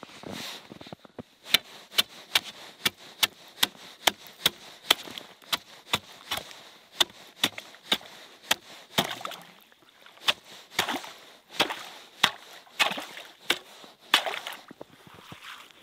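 Ice chipper chopping open an ice-fishing hole that has refrozen with about an inch of new ice overnight. Sharp, quick strikes come about two or three a second for several seconds, then give way to rougher, slushier strokes as the broken ice is churned up.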